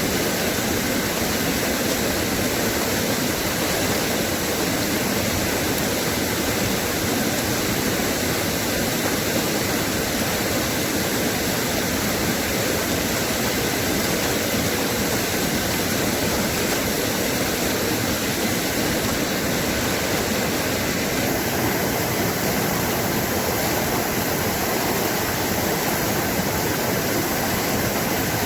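Running water rushing steadily in a continuous, even noise. The hiss grows slightly brighter about two-thirds of the way through.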